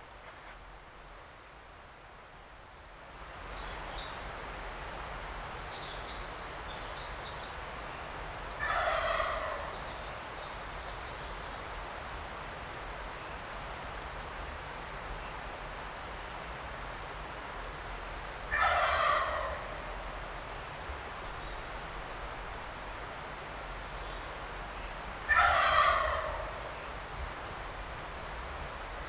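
Wild turkey gobbler gobbling three times, each gobble a rattling call of about a second that drops in pitch, about ten and then seven seconds apart.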